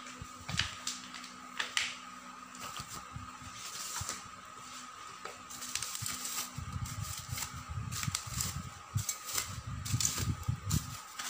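Plastic packing wrap crinkling and rustling as it is pulled off the chrome legs of an office chair's five-star base. Scattered crackles come first; from about halfway the handling gets heavier, with bumps of the metal base.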